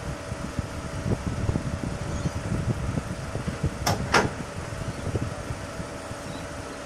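HarbourCat catamaran ferry's engines running with a steady hum over a low rumble. Two sharp knocks in quick succession about four seconds in.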